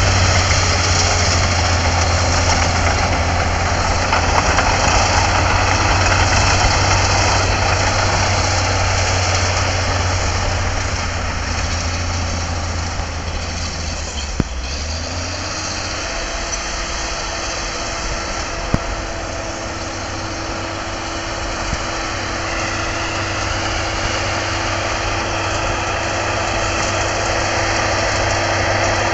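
Crawler bulldozer's diesel engine running steadily as the dozer works and pushes soil, with a deep hum. About halfway through it drops in level and its tone changes, then it grows louder again near the end.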